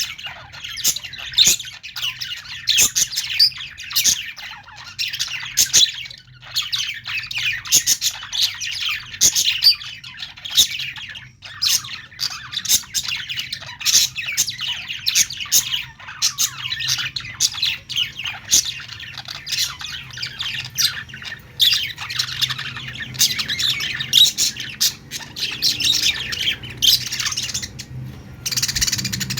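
Several budgerigars chirping and chattering continuously, with quick rapid chirps and sharp clicks tumbling over one another.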